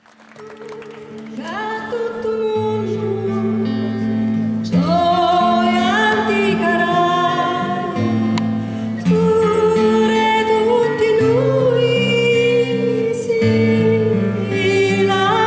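Woman singing a slow song accompanied by acoustic guitar and flute; the music fades in at the start.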